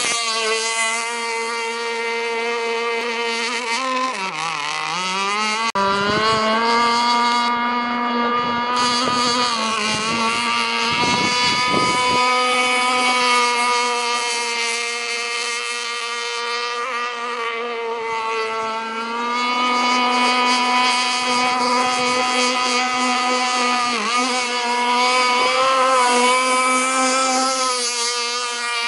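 Radio-controlled model speedboat's motor running at high speed, a steady high-pitched drone that drops in pitch about four seconds in and climbs back up, with smaller rises and falls later.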